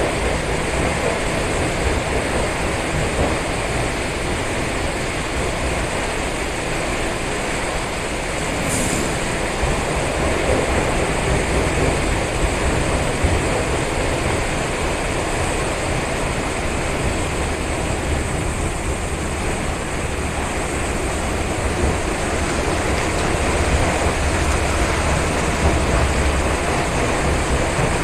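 Helicopter close by: a steady rush of rotor and engine noise with a deep low rumble that swells toward the latter part.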